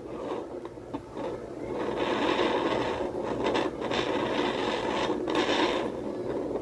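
Handheld fetal Doppler's speaker giving a scratchy rubbing noise as the gelled probe is slid over a pregnant belly, still searching for the baby's heartbeat. The noise grows louder about two seconds in and drops back near the end.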